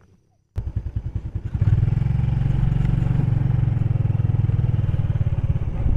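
Motorcycle engine running, with a rapid low pulsing; it starts abruptly about half a second in and gets louder and steadier about a second later.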